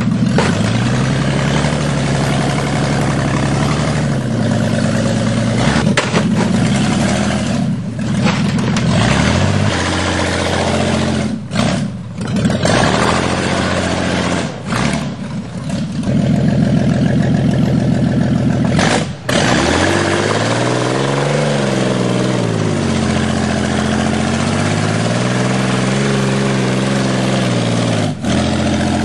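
Old car engine idling and revving up and down, with two long rises and falls in revs in the second half. The sound cuts out abruptly for a moment several times.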